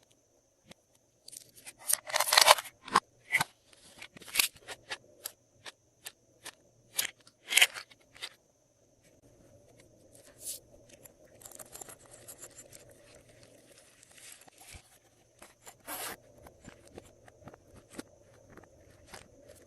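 Glossy slime being squished and worked by hand: an irregular run of sharp clicks and crackling pops. The crackle is densest and loudest shortly after the start, turns softer and more continuous midway, and there is one loud pop near the end.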